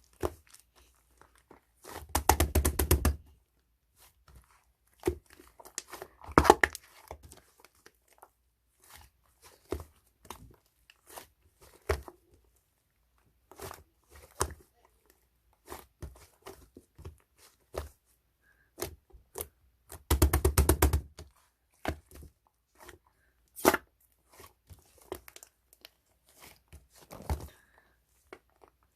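Slime being squished and stretched by hand, giving scattered sharp clicks and pops. There are two longer runs of rapid crackling pops, about two seconds in and about twenty seconds in.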